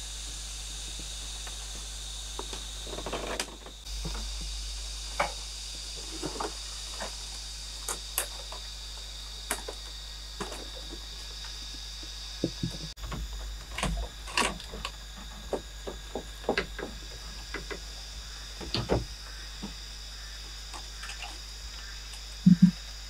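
Irregular knocks and clicks of bamboo poles and woven bamboo panels being handled and fitted into a bamboo hut's walls, with two louder knocks near the end. Under them runs a steady high insect drone.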